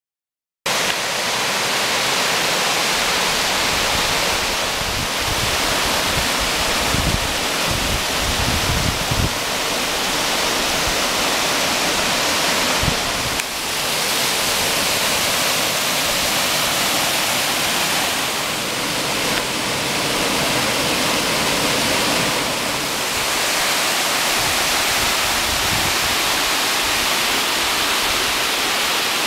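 Cascading creek waterfall rushing steadily over rocks, starting abruptly right at the start, with a few low bumps on the microphone about seven to nine seconds in.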